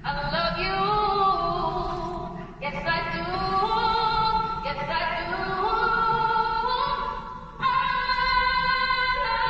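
Soul song: sung vocals without clear words, holding and sliding between notes in phrases over the backing music.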